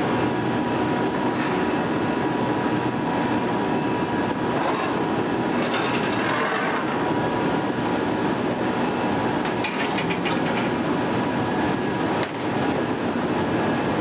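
Steady, dense industrial noise of a steel mill ladle furnace at work, with a faint steady hum running through it. About ten seconds in there is a short run of sharp metallic clicks.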